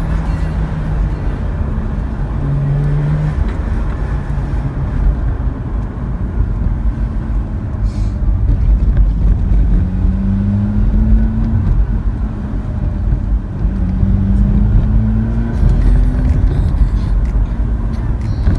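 Mazda RX-8's 13B twin-rotor rotary engine driving. Its note climbs under acceleration and drops back several times in the second half.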